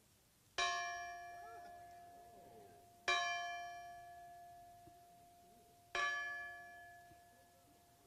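Old 1906 school bell, its clapper missing, struck three times by hand about three seconds apart. Each strike is a clear ring that slowly fades, and the bell still has a nice tone to it.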